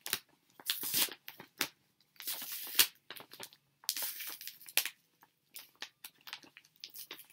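Tape being peeled off a mailed package in a series of short, irregular ripping pulls, with crinkling and rustling of the packaging. The rips come in clusters and thin out near the end.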